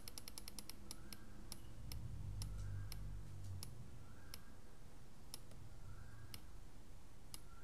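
DPDT relay clicking as it switches back and forth between two LED circuits. The clicks come rapidly at first, then slow down to about one a second as the potentiometer lengthens the switching delay.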